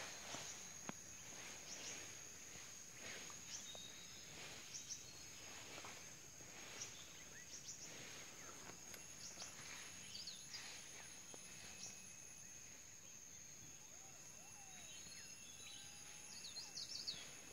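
Faint forest ambience: a steady high-pitched insect drone throughout, with short bird chirps and calls scattered through it and a cluster of chirps near the end.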